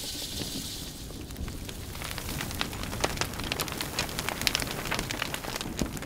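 Fire crackling: many sharp crackles over a steady rushing noise, getting busier about two seconds in.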